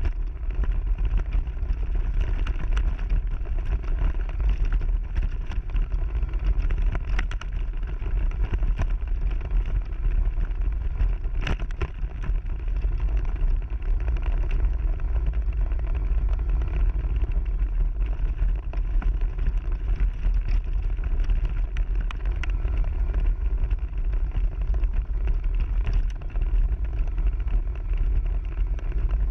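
AC Mayan off-road mobility scooter riding over rough grass and a dirt track, heard through its handlebar-mounted camera: a steady low rumble of wind buffeting and ground vibration, with scattered knocks and rattles as it goes over bumps.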